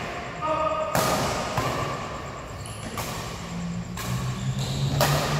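Badminton rackets smacking a shuttlecock back and forth in a rally: four sharp hits about a second apart, echoing around a large indoor hall.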